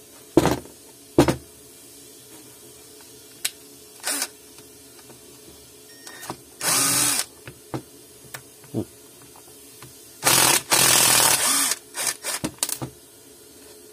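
Cordless impact driver driving a screw into hard wood, running twice: a short run about six and a half seconds in, then a longer run of about a second and a half. It starts with two sharp knocks of the wood block set down on the steel bench, and ends with a few clicks.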